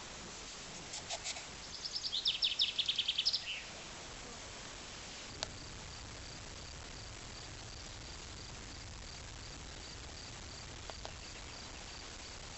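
A bird singing a rapid run of about a dozen high notes over the first few seconds. After that an insect chirps steadily in regular pulses, about three a second, over a quiet outdoor background.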